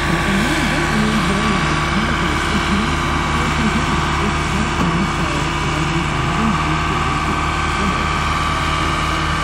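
Ford 2120 tractor's diesel engine running steadily under load, driving a rear-mounted Erskine snowblower.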